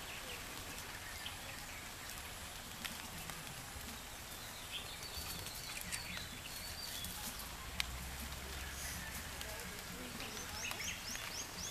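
Quiet outdoor ambience: a steady background hiss with scattered high chirps, likely small birds, and a quick run of chirps near the end.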